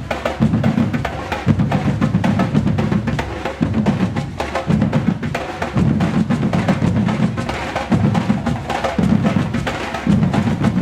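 Batucada percussion ensemble playing: deep bass drum strokes in repeated phrases about a second long, under a dense run of sharp, higher drum strokes and clicks.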